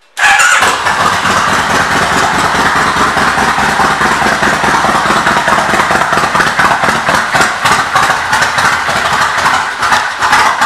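2003 Kawasaki VN1500 Nomad's V-twin engine firing up abruptly and running at a loud, steady idle.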